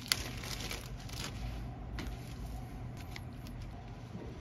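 Clear plastic zip bag crinkling as a remote control is handled in it, opening with a click, then a few light handling clicks.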